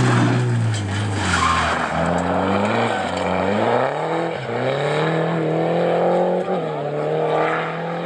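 Peugeot 207 rally car's engine revving hard on a gravel stage, its note falling and rising several times with a sharp dip a little before the middle, then holding steady, over the hiss of tyres sliding on gravel.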